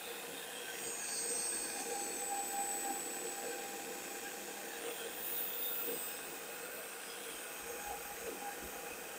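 A homemade boring rig runs steadily, its cutter boring out a Honda Dio scooter cylinder. Under the machine's whir, thin high whistling tones come from metal being cut.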